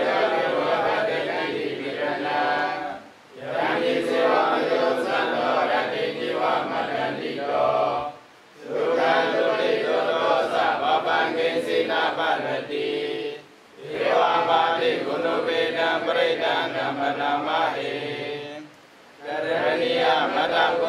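A group of Buddhist monks chanting in unison, their voices continuous and breaking off briefly for breath about every five seconds.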